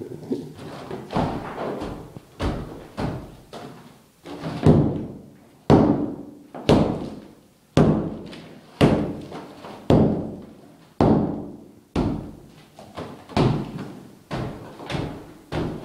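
A hammer smashing into a plastered wall, with heavy blows about once a second, each knocking chunks of wall loose.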